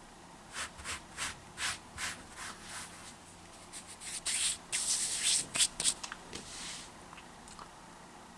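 A run of short rubbing strokes, about two or three a second, then a louder stretch of rubbing and rustling between about four and six seconds in: hands moving close to the microphone.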